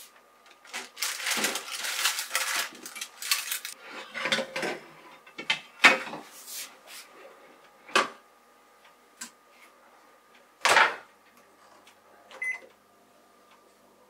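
Parchment paper crackling as a sheet of scone dough is laid on an oven tray. Clinks and knocks follow as the tray is slid into the oven, then a heavy thud as the oven door shuts about eleven seconds in, and a short beep from the control panel. A faint steady hum runs underneath.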